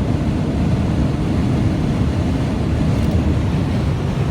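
Steady low rumble of a vehicle on the move, with no distinct engine tone or other events.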